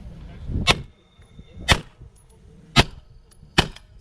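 Four handgun shots fired about a second apart, each followed by a brief faint ringing tone.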